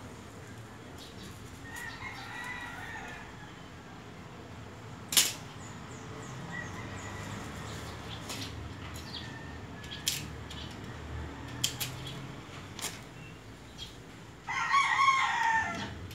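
A rooster crowing: one loud crow of about a second and a half near the end, and a fainter crow about two seconds in. Scattered sharp clicks and knocks, the loudest about five seconds in.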